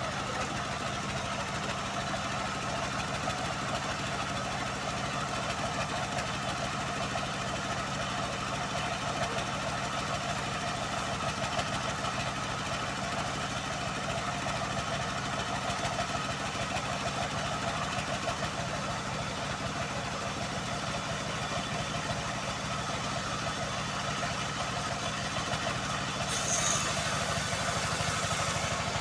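Homemade engine-driven band sawmill running steadily at an even pitch while sawing teak. About 26 s in, a higher hiss joins and it gets slightly louder.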